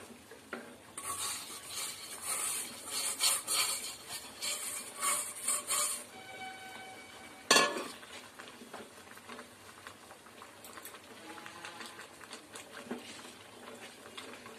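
Roasted semolina (rava) poured into boiling water in a kadai, hissing and bubbling in bursts for the first several seconds. A single sharp knock about seven seconds in, then a wooden spatula stirring and scraping the thickening mixture more quietly.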